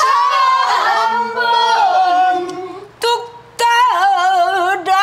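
Female pansori singer singing a long, held, sliding line with wide wavering vibrato. About three seconds in the line breaks off briefly and starts again with a couple of sharp attacks.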